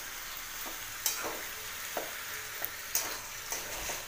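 Vegetables frying in a metal kadai over a gas flame, a steady sizzle. A spatula stirs through them, scraping and knocking against the pan several times, roughly once a second.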